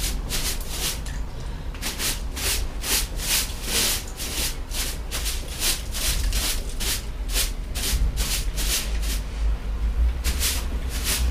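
Broom sweeping the steps in quick repeated strokes, about two to three a second, with a brief pause near the end.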